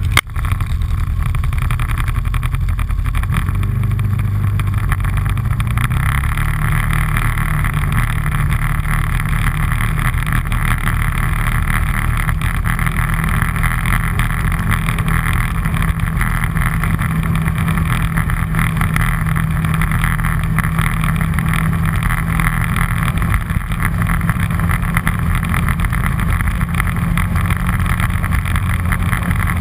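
An all-terrain vehicle's engine running steadily under way, its low engine note shifting a little in the first few seconds and then holding even.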